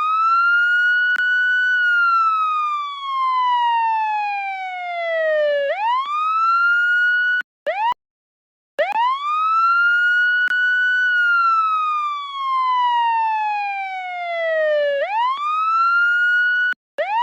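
Police siren wailing in a long cycle. The tone rises quickly, holds high for about two seconds, then slides slowly down over about four seconds before climbing again. The sound cuts out to dead silence for about a second between the two cycles.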